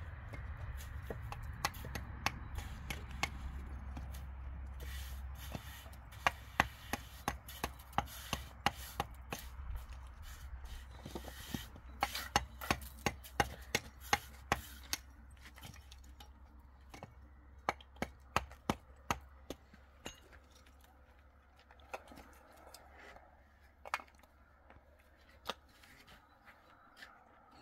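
Sharp, repeated knocks of a tool striking wood, about two a second from about six to fifteen seconds in, then sparser. A low steady hum runs underneath and stops near the end.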